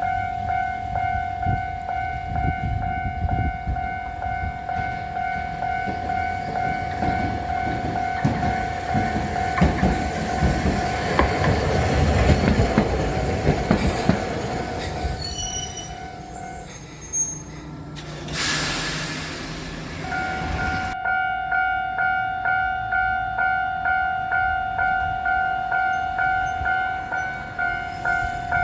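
Electronic level-crossing warning bell ringing its repeated two-tone "kan-kan" while a tram goes by with a rumble of wheels on rails that swells and fades. The bell stops for a few seconds, filled by a short hiss, and then rings again.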